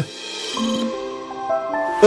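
Background music: a melody of held notes that steps from pitch to pitch.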